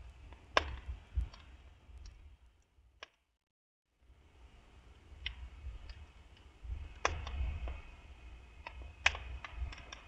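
Wood fire crackling in an open tiled stove: scattered sharp pops and clicks over a low rumble, cut by a brief total dropout just after three seconds in.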